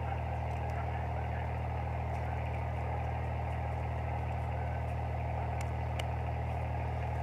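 A steady, unchanging low mechanical hum, with a couple of faint clicks about six seconds in.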